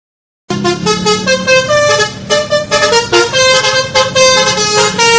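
A multi-tone horn playing a quick tune of rapidly changing notes, starting about half a second in after a moment of silence.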